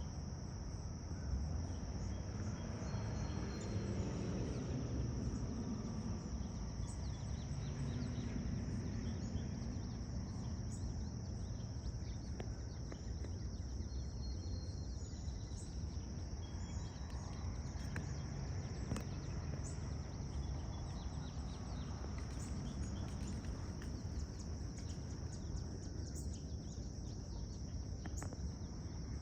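A steady, high-pitched chorus of insects trilling without a break over a low background rumble, with a few faint bird chirps.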